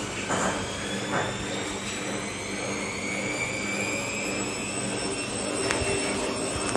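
Bosch washing machine motor whining and rising steadily in pitch as the drum speeds up, over a steady hum, with a few light knocks.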